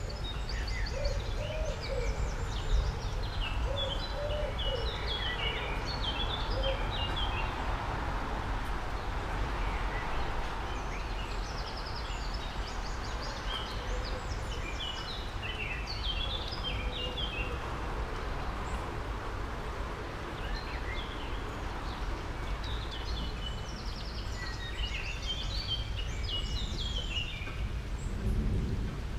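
Bursts of rapid, high chirping, three times, over a steady low background noise.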